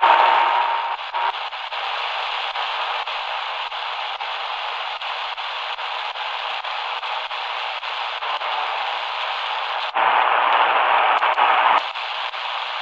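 Shortwave static hissing from the small speaker of an XHDATA D-328 portable radio as it is tuned slowly across the 6.8–7.6 MHz band. A thin whistling tone sounds for about the first second. A stronger station signal comes up for a couple of seconds near the end.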